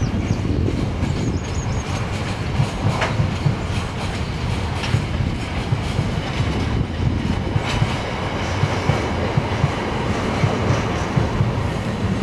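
Freight train rolling past, a steady rumble with the wagons' wheels clattering irregularly over the rail joints.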